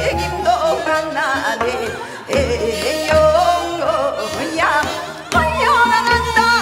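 A woman singing a Gyeonggi minyo (Korean folk song) in a strong voice with wide vibrato and sliding ornaments, over instrumental accompaniment with a recurring low drum stroke.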